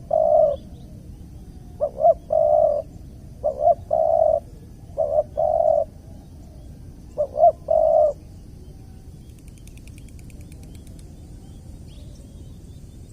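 Spotted dove cooing: five calls a second and a half to two seconds apart, each two short notes followed by a longer one, stopping about eight seconds in.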